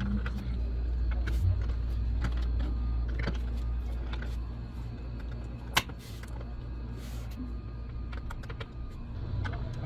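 Scattered light clicks and taps, with one sharper click about six seconds in, over a steady low hum.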